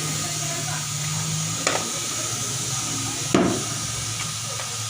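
Tire-changer machine at work: a steady hum under a constant hiss, broken by two sharp knocks, the second louder, about a second and a half apart.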